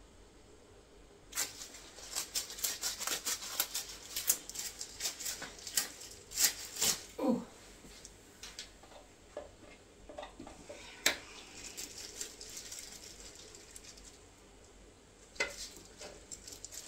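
Small clicks, taps and rustles of objects being handled on a work table, dense for the first several seconds and then thinning to a few sharper clicks.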